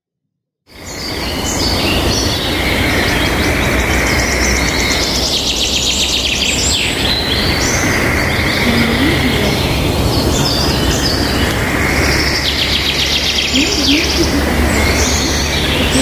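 Several small birds chirping and trilling over a loud, steady noise bed. The sound starts suddenly about a second in after silence.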